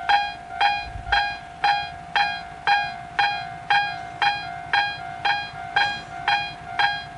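Railway level-crossing alarm on Japan's Tobu Tojo Line ringing. Its bell-like tones strike evenly about twice a second, and each rings out and fades before the next.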